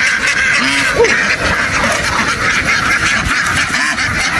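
A large flock of domestic ducks quacking all at once, a dense steady chatter of many birds, with a few single louder calls standing out, one about a second in.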